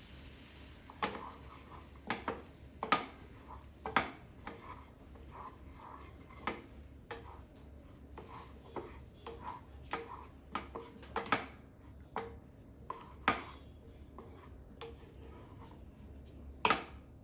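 Metal utensil clinking and knocking against cookware during cooking: irregular taps, some ringing briefly, with the loudest knocks about a second, three and four seconds in and near the end.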